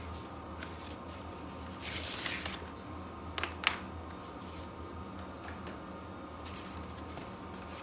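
Large brown paper mailer envelope being handled and turned over: a brief papery rustle about two seconds in, then two light taps, over a steady background hum.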